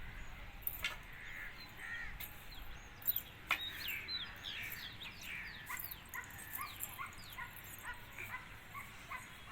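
Birds chirping: a quick run of short falling chirps, about three or four a second, from about three and a half seconds in until near the end. A few sharp clicks come before them.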